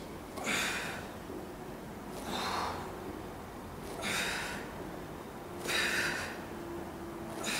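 A man's forceful exhalations under exertion, five in all, evenly spaced about every second and three quarters, in time with the repetitions of his exercise.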